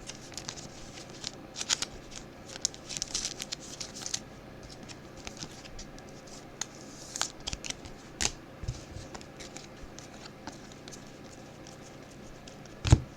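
Trading cards being handled and flipped through by hand: soft slides and rustles of card stock with scattered light clicks and flicks, a couple of sharper snaps about eight seconds in and near the end.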